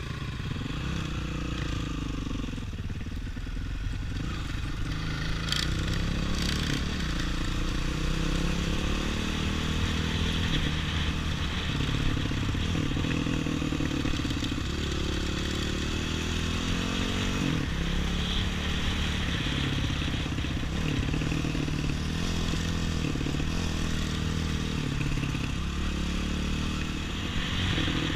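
Off-road trail motorcycle engine running under way, its pitch rising and falling over and over as the throttle opens and closes.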